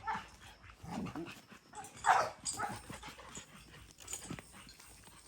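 Pit bull terriers barking: a handful of separate barks spread out over a few seconds, the loudest about two seconds in.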